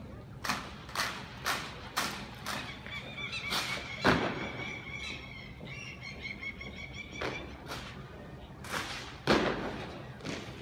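A drill team's boots striking the pavement in step, about two sharp stamps a second, then fewer, louder claps, likely rifle drill movements. The loudest come about four seconds in and again near the end.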